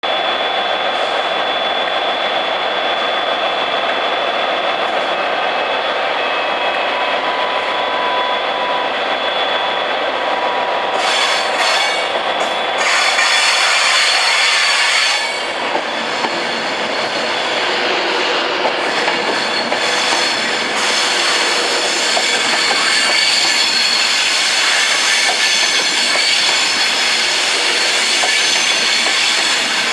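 Virgin Class 390 Pendolino electric train rolling slowly into a curved station platform, its wheels squealing, with extra high-pitched hiss and squeal as the front passes close about halfway through.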